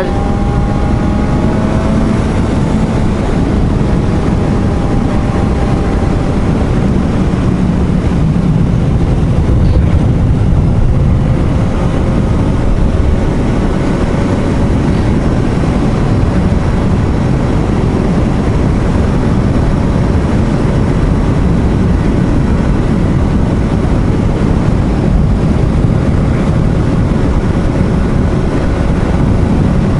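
Suzuki GSR750 inline-four motorcycle engine running at steady cruising speed, heard from the rider's seat under a heavy rush of wind on the helmet microphone.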